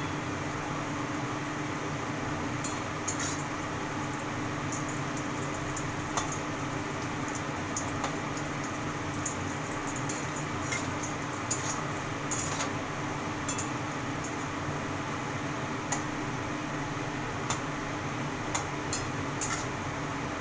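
Small chunks of food frying in oil in a wok: a steady sizzle, with short clicks and scrapes now and then as a spatula stirs against the wok.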